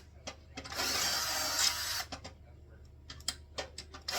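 Pneumatic air hammer running in a burst of about a second, setting a rivet through the sheet-metal seat panel, followed by a few light clicks and taps as the tool is repositioned.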